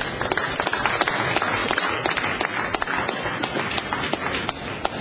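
Audience applause: many quick, separate hand claps over a general patter, thinning out near the end.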